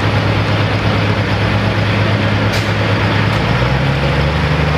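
International Harvester Super Stock pulling tractor's engine running loud and steady at the end of a pull, its note shifting about three and a half seconds in.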